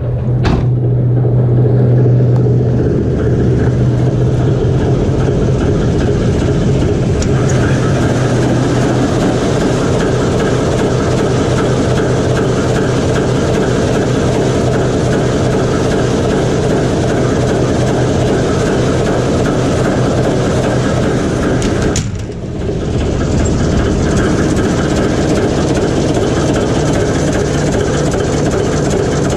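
Diesel engine of a TEM2UM shunting locomotive running steadily, heard in its engine compartment. The sound dips briefly about three-quarters of the way through.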